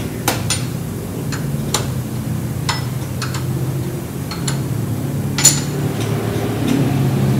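Irregular sharp metallic clicks and clinks of a wrench working the oil drain plug on a 1989 Chevy Caprice's oil pan, the loudest about five and a half seconds in, over a steady low hum.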